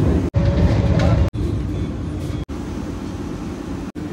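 Low rumble of a train, with a steady hum, broken by abrupt cut-offs about every one to one and a half seconds.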